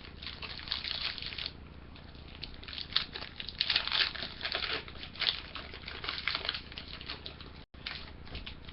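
Foil card booster pack wrapper crinkling in the hands as it is opened, in irregular bunches of crackle.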